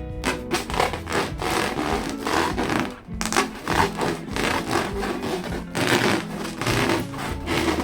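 Hands rubbing and squeezing inflated latex balloons, an irregular run of scratchy rubbing strokes.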